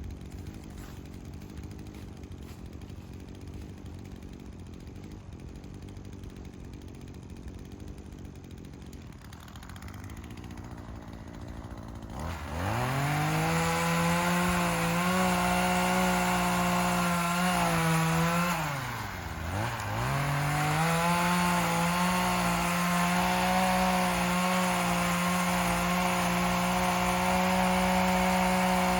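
Two-stroke engine of an Echo PPT-2620 pole saw, cutting a tree limb. A low, quieter rumble fills the first twelve seconds. Then the engine revs up sharply to full throttle and holds a steady high note. Around twenty seconds in it drops briefly and revs back up.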